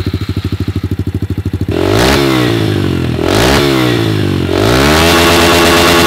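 Honda CRF110F pit bike's small single-cylinder four-stroke engine idling with distinct, even firing pulses, then revved: two quick blips of the throttle, then a longer rev held high near the end.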